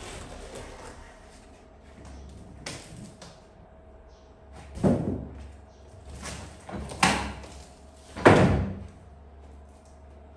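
Large cardboard shipping box being handled and pulled up and away, its flaps and sides scraping and thumping. A handful of sudden thuds, the loudest about eight seconds in.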